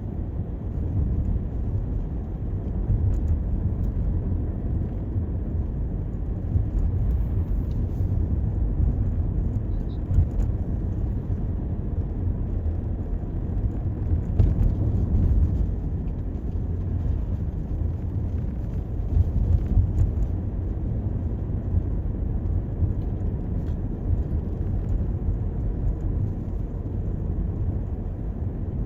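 Toyota Corolla driving on a city street: a steady low rumble of tyres on the road and the running engine.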